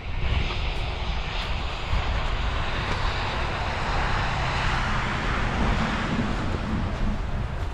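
Vehicle noise: a steady low rumble with a rushing sound that swells to a peak midway and eases off, as of traffic going past.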